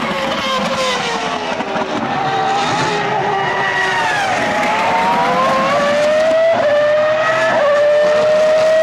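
A 2004 Formula One car's V10 engine at racing speed. Its high, buzzing note falls in pitch over the first few seconds, then climbs steadily as the car accelerates, with two quick shifts in pitch near the end.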